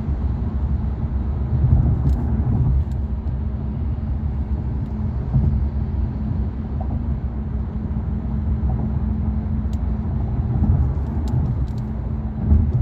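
Steady low road and engine rumble heard from inside a car's cabin while driving on a freeway, with a few faint ticks.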